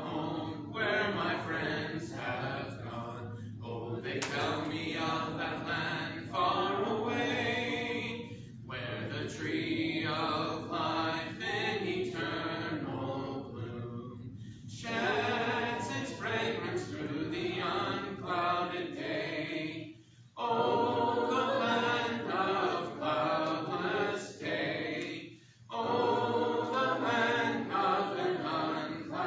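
Congregation singing a hymn together a cappella, with no instruments, in sung phrases separated by short pauses.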